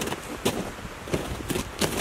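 Footsteps crunching in snow, several steps at an uneven walking pace.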